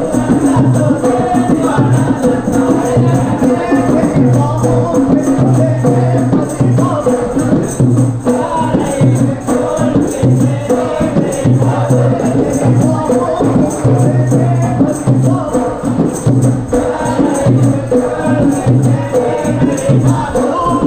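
Maldivian bodu beru: several large hand-beaten bodu beru drums playing a steady beat while a group of men sing a chant over it.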